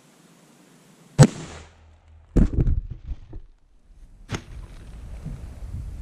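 A 30-06 rifle shot striking ballistic gel blocks: one sharp, loud crack about a second in, followed by a heavy thud and clatter as the gel and table gear are knocked down, and another sharp knock about four seconds in.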